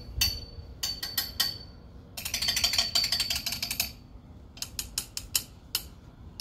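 Drumsticks tapping on a wooden gate and its metal pole: a few separate taps, then a fast run of rapid clicks lasting a bit under two seconds with a high ring over it, then more single taps.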